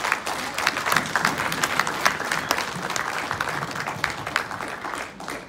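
Audience applauding: many hands clapping densely, easing off slightly near the end.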